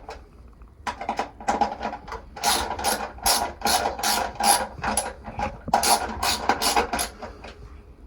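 Rapid mechanical clicking in quick irregular runs, starting about a second in, from a hand tool being worked.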